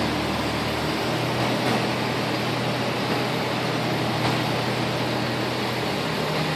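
Toyota Innova running, a steady hum and hiss from the underbody and exhaust, with a low hum that steps up in pitch about a second in. This is the underbody noise the owner objects to; the dealer's technician calls it a normal exhaust tail whistle, even after the middle exhaust section was replaced.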